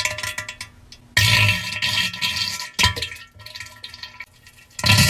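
Cartoon diarrhea sound effect: several wet, splattering bursts into a toilet, the first and longest lasting about a second and a half, then a short one and another near the end.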